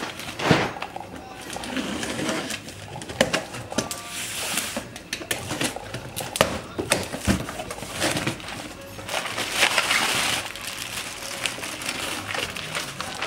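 A cardboard shipping box being unpacked: packing tape slit and pulled off, flaps handled, and bubble wrap rustling. There are irregular clicks and scrapes throughout, with longer rustling spells about four and ten seconds in.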